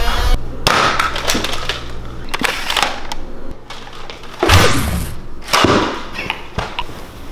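Nerf foam-dart blaster shots and darts striking: a string of sharp clicks and knocks, with two falling whooshes about four and a half and five and a half seconds in, the first of them the loudest.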